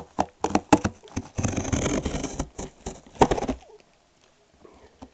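Cardboard box being handled as a packed subwoofer enclosure is worked out of it: a quick run of knocks and taps, about a second of cardboard scraping and sliding in the middle, then a few more knocks.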